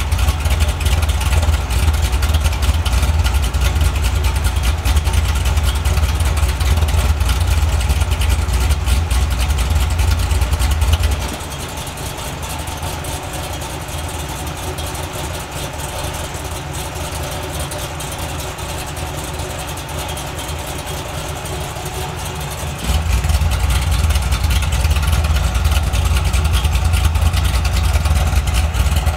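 Cammed LS7 V8 of a 2006 Corvette Z06, through long-tube headers and Mild-to-Wild valved mufflers, idling with a lopey big-cam idle. About eleven seconds in it turns abruptly much quieter as the muffler valves are closed, and about twelve seconds later it jumps back to full loudness as they open again.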